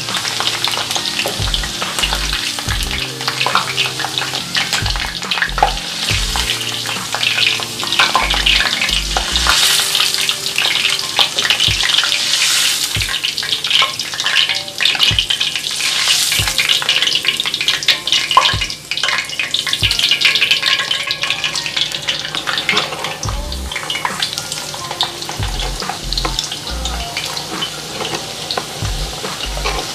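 Raw-cut potato fries deep-frying in hot oil in a cast-iron skillet: a dense, steady sizzle and crackle. A slotted spoon stirs and scoops fries out, adding scattered clicks and scrapes against the pan.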